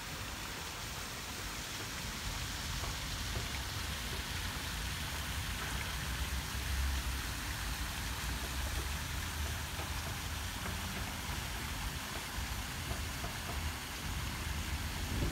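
Park fountain's water jets splashing into its basin: a steady hiss of falling water, with a low rumble underneath.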